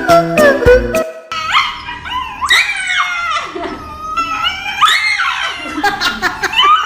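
A dog howling: about four long calls that rise and fall in pitch. Music plays under the first second and then stops.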